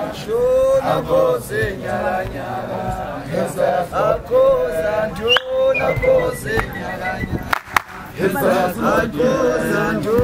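A group of young men chanting and singing a traditional Zulu song together, with a few sharp hand claps among the voices.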